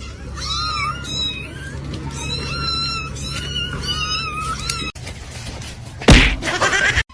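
A cat meowing over and over: a string of short, high-pitched meows, one after another. About five seconds in the sound cuts off and a single loud thump follows about a second later.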